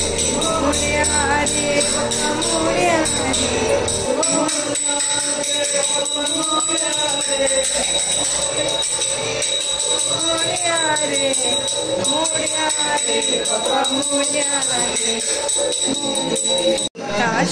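A devotional song: a singing voice over instrumental accompaniment, its low bass part dropping out about four seconds in. The music breaks off for a moment near the end.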